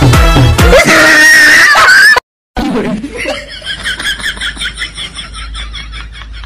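Loud music with a heavy beat that cuts off abruptly about two seconds in. After a brief silence comes high-pitched laughter, quick repeated bursts of a laugh that slowly fade.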